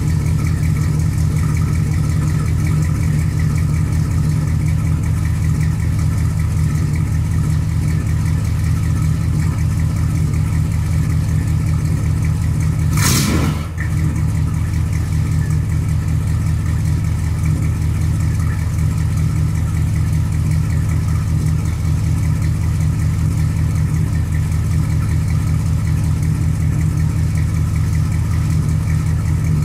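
A 1968 Dodge Coronet wagon's 440 V8 idling steadily, heard at the exhaust while it warms up after its first cold start of the year. A brief sharp noise cuts through about halfway through.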